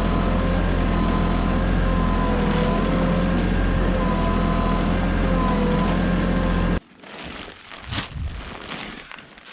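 Tractor engine running steadily with a deep rumble and a faint wavering whine; it cuts off abruptly about two-thirds of the way through, leaving quieter footsteps and rustling.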